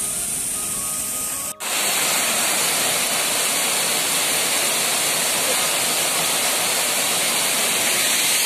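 Waterfall pouring over rocks into a stream pool: a steady rush of falling water and splashing. About a second and a half in, the sound drops out for an instant and comes back louder.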